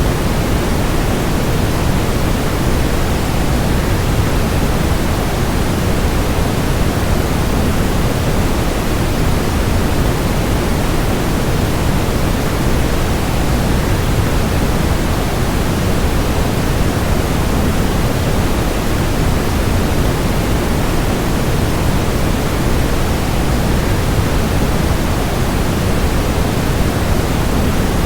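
Waterfall: a steady, even rush of falling water, heaviest in the low end, with no change or break.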